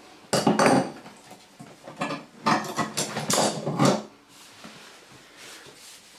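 Metal tools clinking and scraping against a brass compression fitting on copper pipe as its nut is tightened, in a few short clattering bouts.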